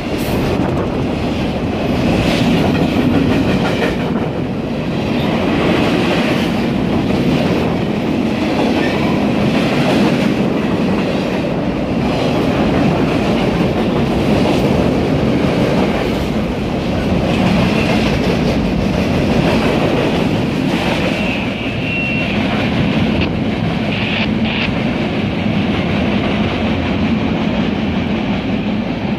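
Norfolk Southern / Conrail Shared Assets freight train of boxcars and covered hoppers rolling past close by: a steady heavy rumble with wheels clacking over rail joints, and a short high squeal about three quarters of the way through.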